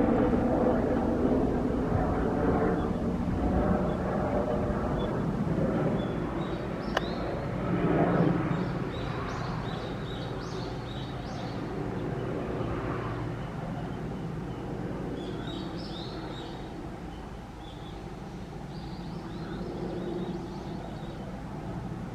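Airbus Helicopters AS350B3 Ecureuil single-engine turbine helicopter flying low past, its rotor and engine sound loudest at first and fading as it moves away. Birds chirp over it in the middle and near the end.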